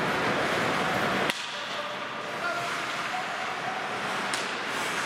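Ice hockey rink noise during play: a steady hiss of skates and arena sound. A single sharp crack about a second in, after which the sound drops a little, and a smaller click near the end.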